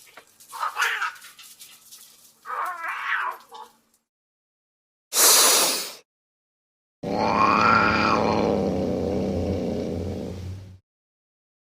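Angry cat sound-effect clips separated by silent gaps: two short wavering yowls in the first four seconds, a short hissing burst about five seconds in, then a long low growl with a rising-and-falling yowl over it from about seven seconds in.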